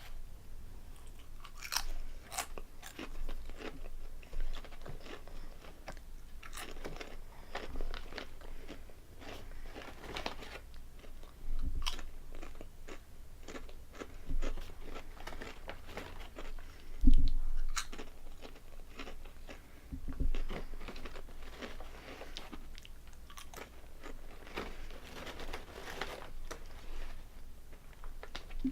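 Close-up crunching and chewing of Calbee Honey Butter potato chips, a long run of crisp bites. A few low thuds come in between, the loudest about two-thirds of the way through.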